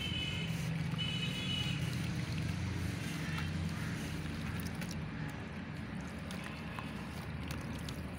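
Dry white cement crumbling from a hand-held chunk, its powder and crumbs pattering into a plastic tub of water, with faint crackles. A steady low rumble runs underneath, and two short high-pitched tones sound in the first two seconds.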